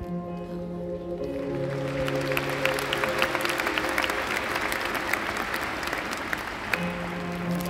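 A large arena audience applauding over background music with long held notes; the applause builds about a second in and dies away near the end.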